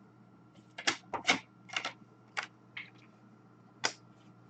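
About seven short, sharp clicks at irregular spacing, in a cluster during the first half and one more near the end, over a faint steady hum.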